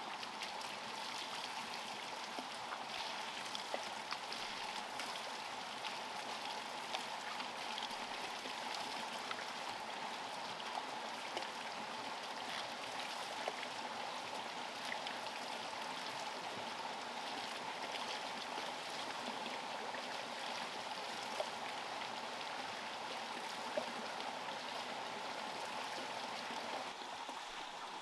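Steady rush of running water in a stream, with scattered faint ticks.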